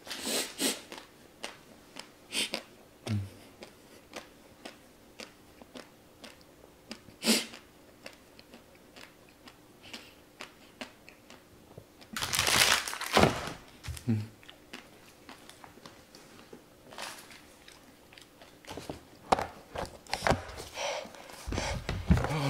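Close-miked mouth and breath sounds from a man with his mouth burning from the Paqui One Chip Challenge chip: short puffs of breath blown out through pursed lips, scattered small mouth clicks and chewing. About halfway through comes a longer, harder exhale.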